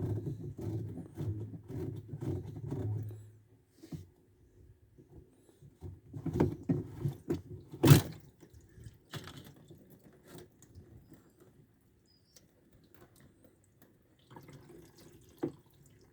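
Scattered clicks and knocks of the drain parts of a twin-tub washing machine being handled as the clogged drain is opened up, with one loud sharp knock about eight seconds in.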